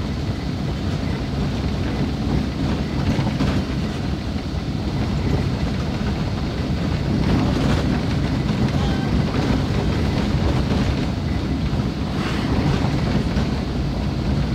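Car driving at a steady speed, heard from inside the cabin: a steady low drone of engine and tyres on a rough, wet unpaved road.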